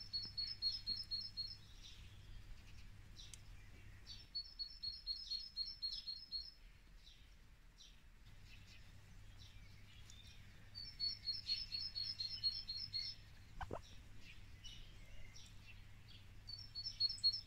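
A small songbird singing a quick trilled phrase of rapid, evenly spaced high notes, about two seconds long, repeated four times with pauses of a few seconds between.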